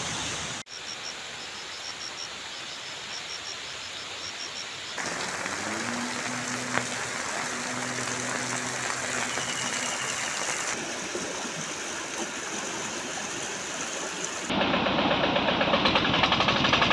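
Outdoor field sound of heavy rain and swollen floodwater: a steady rushing hiss, with short high chirps repeating in the first few seconds and a low engine hum for several seconds in the middle. About two seconds before the end it gets louder and rougher, as floodwater rushes over a causeway.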